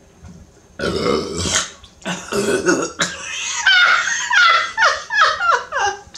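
A woman burping repeatedly from the carbonation of a just-finished 20-ounce bottle of Coke: a long loud burp about a second in, another shortly after, then a quick run of short burps, each dropping in pitch.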